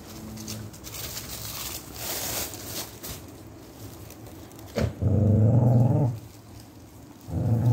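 Dogs eating fried rice from a plate on a plastic bag: scattered chewing clicks and plastic rustling. Then a dog growls twice, a low growl of about a second just after five seconds in and a shorter one near the end.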